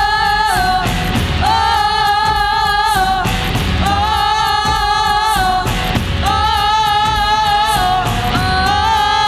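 Live band and a group of singers performing a Tamil film song: long held notes about every two seconds over drums and bass, with a long note sliding slowly upward near the end.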